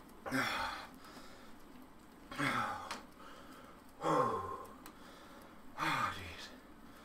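A man breathing hard from exertion while pedalling an exercise bike. There are four heavy exhales through the mouth, about one every two seconds, each falling in pitch as it trails off.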